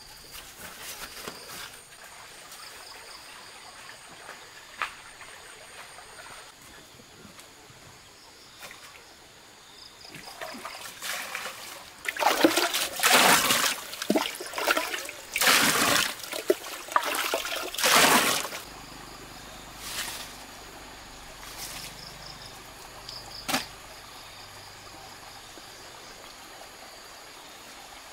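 Water pouring and splashing in several bursts of about a second each around the middle, beside a large pot of boiling water, over steady insect chirping.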